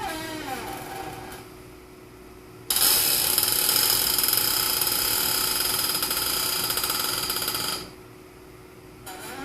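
A chair squeaking with a wavering pitch in its first second, then a Fluid Film AS-360 aerosol can spraying lubricant onto the chair in a steady hiss for about five seconds, starting about three seconds in. The squeak starts again near the end.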